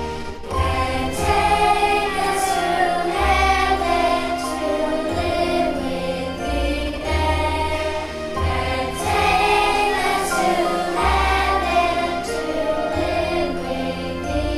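Children's choir singing a Christmas song over instrumental accompaniment with a low bass line.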